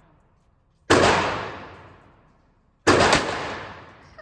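Two shots from a compact semi-automatic pistol, about two seconds apart. Each sharp crack is followed by a long echo that fades over about a second in an indoor range.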